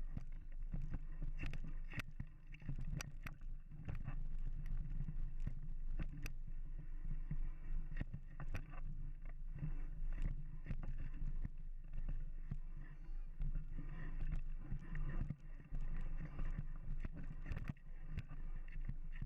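Mountain bike being ridden on a dirt trail: a steady low rumble of tyres and wind on the microphone, with frequent clicks and knocks as the bike rattles over bumps.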